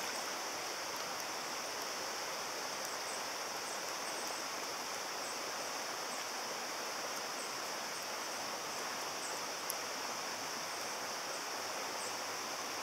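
Steady rushing of a stream flowing over stones, with a faint click about ten seconds in.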